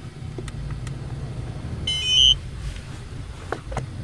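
Low steady rumble of a car, heard from inside the cabin. About two seconds in comes a short electronic beep sequence from the drone gear on the dashboard, the loudest moment.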